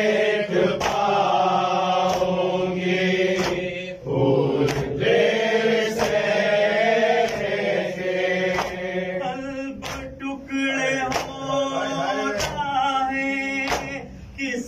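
Men chanting an Urdu noha, a Muharram lament, together, with the sharp slaps of hands beating chests in matam keeping time about once a second.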